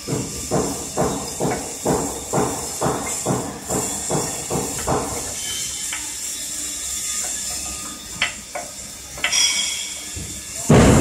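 About ten evenly spaced knocks on the steel leg and brace of a welding-machine frame, roughly two a second, stopping about halfway through; a couple of sharper clicks follow near the end, over a steady high hiss.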